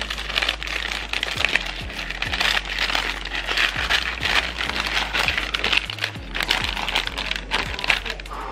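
Nando's Peri-Peri Bag and Bake paper oven bag crinkling and crackling as it is folded shut by hand, with background music underneath.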